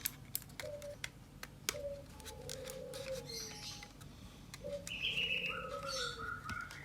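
Birds calling in the background, low wavering cooing notes and, from about five seconds in, a higher repeated chirp, with light clicks and taps of plastic as a computer mouse's shell is opened.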